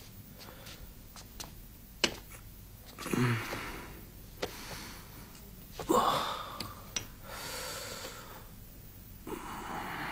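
A man gasping and breathing hard in pain, in three strained breaths about three, six and nine seconds in, from a leg that is giving him trouble, with a few small knocks between them.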